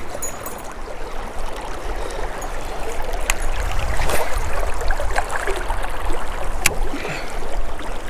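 River current rushing and trickling around the wading angler, with a low rumble underneath. Two sharp clicks come about three seconds in and again near the end.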